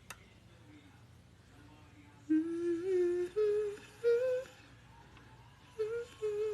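A woman humming a tune in held notes that step upward, in two short phrases, after a faint click at the start.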